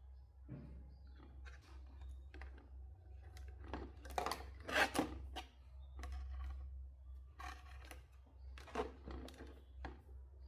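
Scattered clicks, snips and scrapes of small tools and parts being handled at a workbench, loudest and busiest about four to five seconds in, over a steady low hum.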